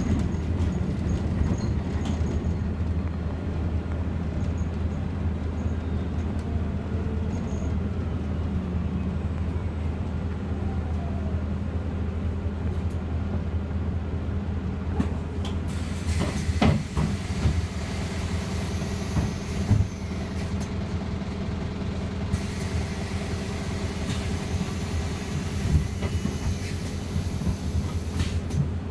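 Iveco Urbanway 18 Hybrid articulated city bus heard from inside the cabin on the move: a steady low hum from the drivetrain with road noise. A faint whine falls in pitch over several seconds. In the second half there are a few knocks and rattles from the bus body.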